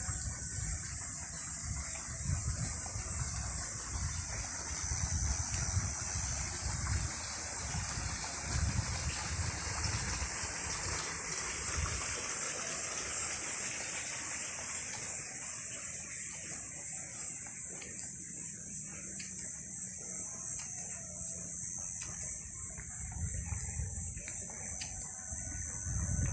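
A steady, high-pitched chorus of insects, with an uneven low rumble underneath. A broader rushing noise swells in the middle and dies away about two-thirds of the way through.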